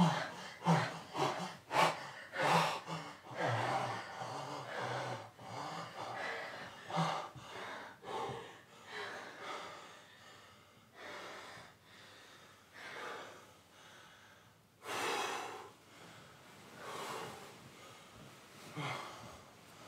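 A person breathing heavily with rhythmic voiced gasps, about two a second at first, then slower and fainter irregular breaths, with one strong exhale about fifteen seconds in.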